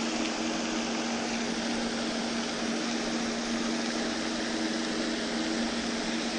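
Steady machine hum: two constant low tones over an even hiss, unchanging throughout.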